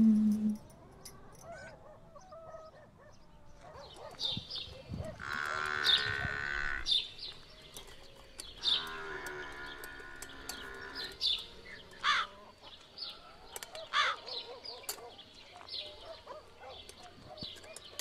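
Cattle lowing: two long moos, about five and nine seconds in, with birds chirping on and off throughout.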